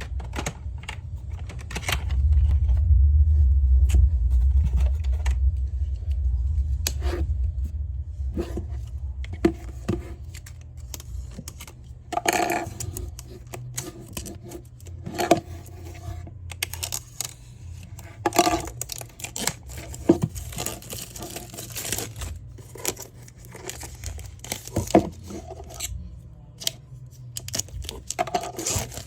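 Planner packaging being opened and handled: tearing and crinkling of wrapping, with scattered taps and clicks. A low rumble of handling noise on the microphone comes in the first few seconds.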